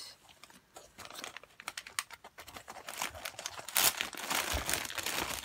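Packaging crinkling and rustling as it is handled, with many small crackles and clicks, getting busier and louder from about three seconds in.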